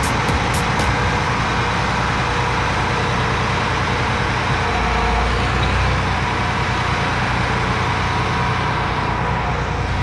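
John Deere 8260R tractor's 9.0-litre six-cylinder PowerTech diesel running steadily as the tractor drives across the yard, with a slight swell in the low engine sound about halfway through.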